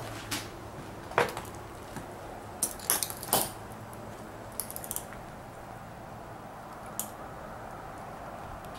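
Footsteps on a floor strewn with broken plaster and tile, with short, sharp clinks and cracks as fragments shift and break underfoot, several close together in the first five seconds and one more near seven seconds.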